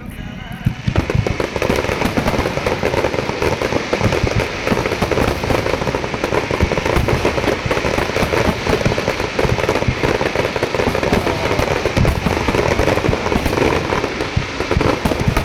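Fireworks finale barrage: aerial shells bursting in dense, rapid succession with crackle, building up about a second in and then keeping on without a break.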